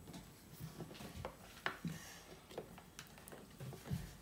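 Faint, irregular small taps and clicks of seasoning containers being handled on a kitchen counter while salt is sprinkled, the loudest about one and a half seconds in.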